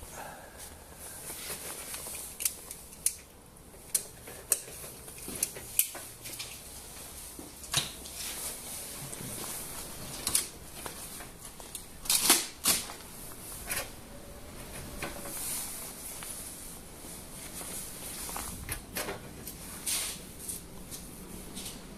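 Irregular clicks, taps and light rustling of objects being handled, with a loud cluster of clicks about halfway through.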